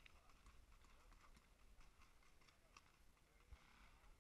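Near silence, broken by a few faint, scattered pops of distant paintball markers firing.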